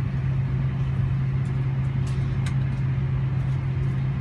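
Steady low drone of an airliner's cabin, heard from inside, with a couple of faint clicks about two seconds in.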